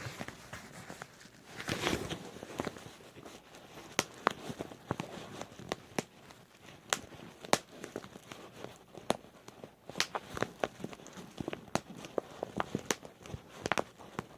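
Bubble wrap being popped by hand: sharp single pops at irregular intervals, a few much louder than the rest, with a burst of plastic crinkling about two seconds in.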